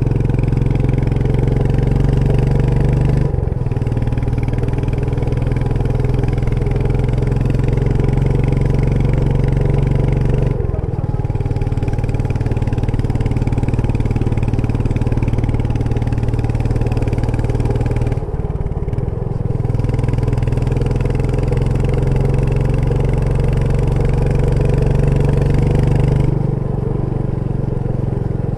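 Royal Enfield Meteor 350's single-cylinder engine running under way with a rider's-eye exhaust sound, the engine note easing off briefly four times, at roughly seven-second intervals, before picking up again.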